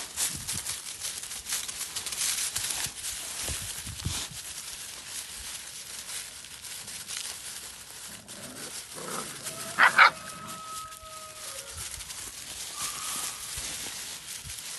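Dry fallen leaves crunching and rustling under puppies' paws. About two-thirds of the way through, a puppy lets out a sharp yelp that trails into a short whine.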